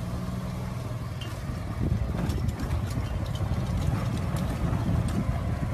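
Golf cart driving along, its motor humming steadily at first. From about two seconds in, a rougher rumble with scattered knocks and rattles joins it as the cart bumps along.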